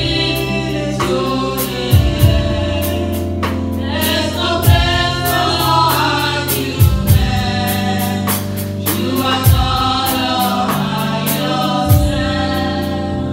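Gospel music: a choir singing over sustained low bass notes, with a slow drum beat and frequent cymbal ticks.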